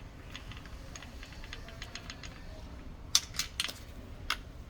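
Small clicks and ticks of a screwdriver working a small screw out of a digital door lock's metal back handle. Scattered faint ticks are followed by a cluster of sharper clicks about three seconds in and one more a second later.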